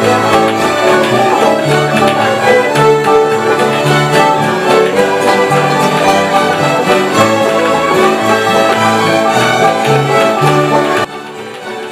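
Acoustic string band playing a fiddle tune: fiddle leading over mandolin, acoustic guitar and banjo, with a bouncing bass line from the guitar. About eleven seconds in the sound drops abruptly quieter and duller.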